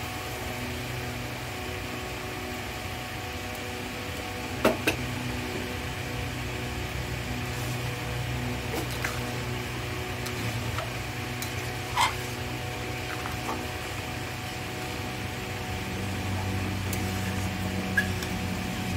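A steady low mechanical hum, over which a metal spatula clinks against a steel kadai of simmering curry: two clinks close together about five seconds in, one about twelve seconds in, and one near the end.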